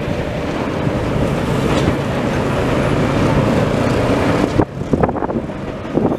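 DB Class 261 diesel-hydraulic locomotive running as it hauls a freight train slowly past, with wind noise on the microphone. The wind noise stops suddenly a little over four seconds in, leaving the engine and a series of short knocks.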